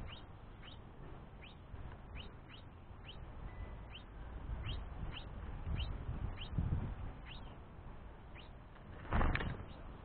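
House finch chirping: short, high, down-slurred calls repeated about twice a second, the begging calls of a young finch pestering its father for food. About nine seconds in comes a loud flurry of wingbeats as the finches fly off the feeder.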